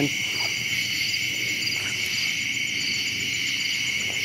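Steady chorus of night insects: a constant high-pitched chirring, with a second layer of quick, even pulses on top.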